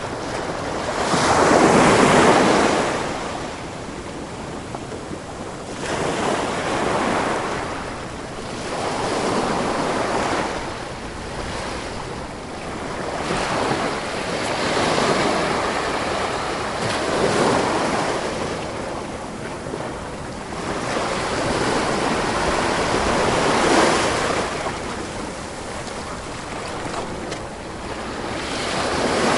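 Sea waves breaking and washing on a shore, swelling and fading in repeated surges every few seconds, the biggest about two seconds in.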